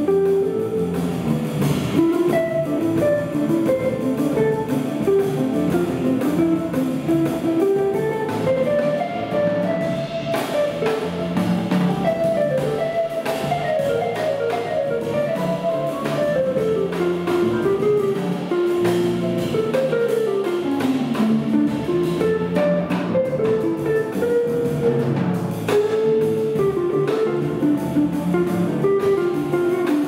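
Jazz quartet playing live: a guitar plays quick melodic lines that climb and fall, over a drum kit and the rest of the band.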